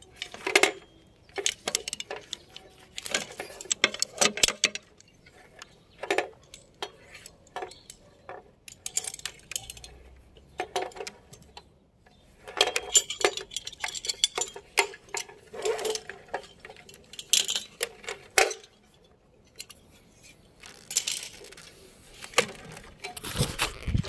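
Metal hardware clinking and rattling in irregular clusters of sharp clicks as it is handled: the carabiners and hooks of a cable installer's climbing and tool gear while he works at height.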